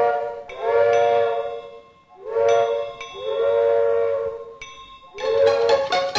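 Background music: an instrumental break in a Tagalog song, with a whistle-like melody instrument holding about four long notes, each sliding up a little into pitch.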